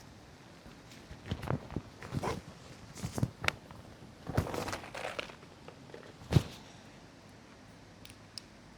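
Scattered rustles, clicks and knocks of things being handled or stepped on, with a single sharp knock, the loudest, about six seconds in.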